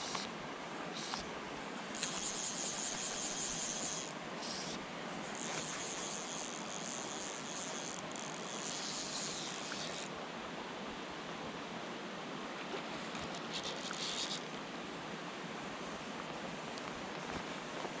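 Steady outdoor rushing hiss, with stretches of brighter high hissing in the first half and again briefly past the middle.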